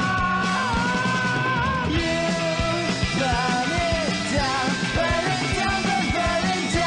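Rock music with a singing voice over a band and a steady drum beat.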